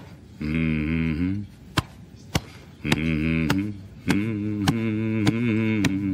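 A man humming a low, wordless chant in three short phrases while thumping his chest with his fist in a steady beat, a bit under two thumps a second.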